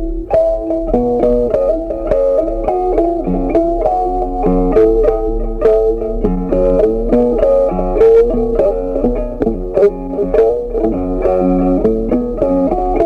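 Background music led by plucked guitar, with a steady run of changing notes over a lower bass line.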